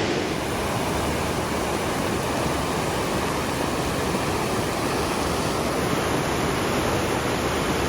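Whatcom Falls waterfall rushing, a steady unbroken roar of falling water.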